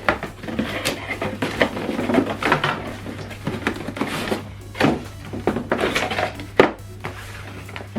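Cardboard and packaging being handled as a speaker box is unpacked: irregular rustling with scattered knocks and thunks, over a steady low hum.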